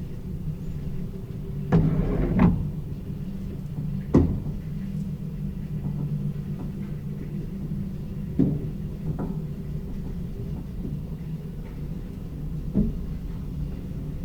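Elevator running with a steady low hum and rumble, broken by short mechanical clunks and knocks: a double clunk about two seconds in, a sharp knock at about four seconds, and lighter ones later.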